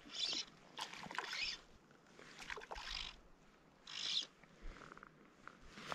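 Fly line being stripped in by hand, several short hissing pulls about a second apart.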